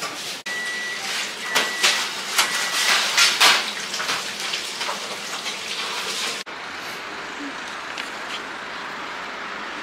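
Fast-food restaurant kitchen noise: a steady hiss with clatter and clicks, and a high electronic beep sounding three times in the first three seconds. After an abrupt cut about six and a half seconds in, only a steady hiss remains.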